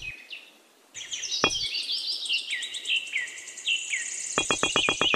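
Birds chirping steadily, with two light clicks of small model bricks being set down, one at the start and one about a second and a half in. Near the end a fast, even pulse begins.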